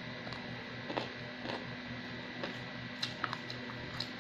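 Plastic fork and spoon clicking and scraping against a paper food tray and plate: a handful of scattered clicks over a steady background hum.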